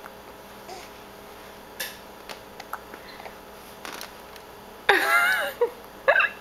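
Hiccups: a few short, sharp hiccup clicks at irregular spacing, followed about five seconds in by a louder pitched vocal sound lasting under a second, and a brief pitched sound just after.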